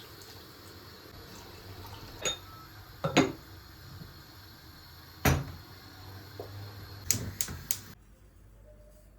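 A few sharp knocks and clinks of kitchenware being handled over a low steady hum, the loudest two about three and five seconds in and a quick run of clinks around seven seconds; the background hum drops away abruptly near the end.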